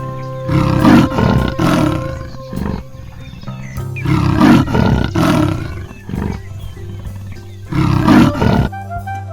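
A big cat roaring and growling in three long rough bouts a few seconds apart, over background music that switches to a brassy jazz tune near the end.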